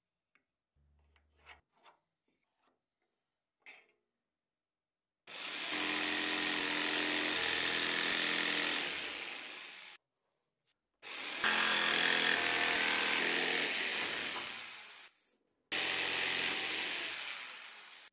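Electric saw cutting a small block of wood, three times: each cut starts abruptly and fades out, with the motor's hum beneath the noise of the blade in the wood. Before the cuts come a few light taps as the block is marked with a square and pencil.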